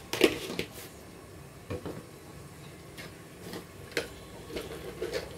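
Scattered short pops and crackles from hot soybean oil in a pressure-cooker pot holding sliced onions and bay leaves, several irregular clicks over a faint background hiss, the sharpest just after the start.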